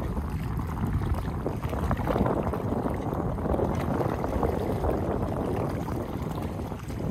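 Wind buffeting the microphone over choppy water, with water sloshing and lapping, swelling a little in the middle.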